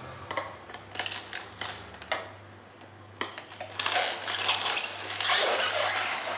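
Hand-cranked juicer crushing raw bitter gourd. It starts with a few sharp clicks as the pieces go into the plastic hopper, and from about three seconds in there is dense, louder crunching and crackling as the tough vegetable is ground.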